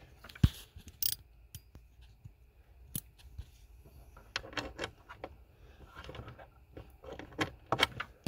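Socket ratchet clicking as 8mm bolts are loosened, with scattered metallic clinks and taps. Short runs of rapid ratchet clicks come about halfway through and again near the end.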